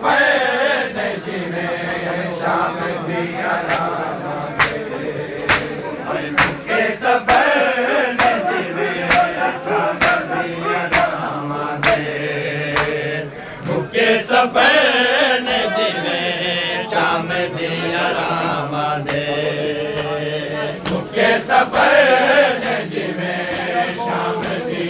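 A crowd of men chanting together in a steady, pitched chorus, with sharp slaps of hands striking bare chests in matam cutting through it about once a second.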